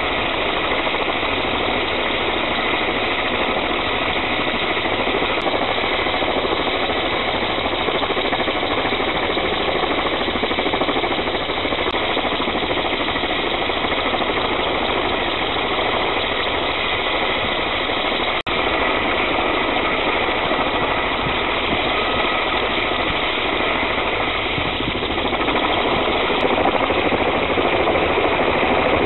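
Kamov coaxial-rotor helicopter running on the ground with its rotors turning: a steady, loud engine and rotor noise that grows a little louder near the end as it readies for takeoff.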